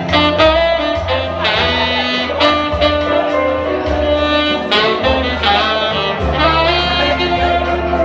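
Tenor saxophone playing a melody over musical accompaniment with a bass line.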